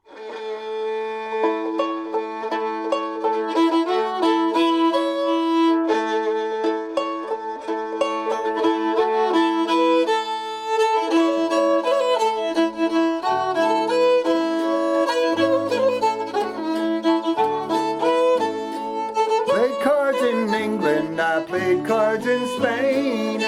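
String band playing an old-time tune, the fiddle carrying the melody over a picked banjo. Low bass notes join about halfway through.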